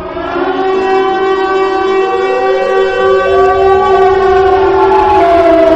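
A siren wailing: several tones sounding together, held steady, with one pitch slowly gliding upward in the middle. It swells in at the start.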